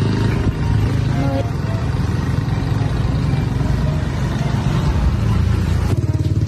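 Motor vehicle engine running steadily on the move, with road and wind noise; the high hiss drops away about six seconds in.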